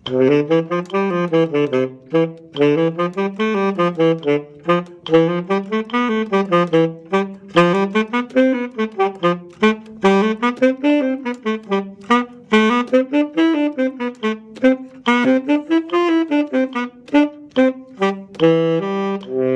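Tenor saxophone playing a practice exercise at 72 beats per minute: runs of notes that rise and fall again and again, tongued and slurred as marked, with a full breath at about forte. It ends on a held note.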